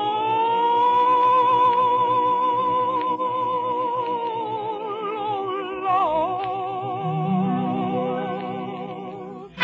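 Operatic singer holding one long high note with a wide vibrato over orchestral accompaniment, heard through an old 1940s radio broadcast recording. The note dips in pitch briefly about six seconds in, and a low sustained orchestral note enters beneath it about a second later.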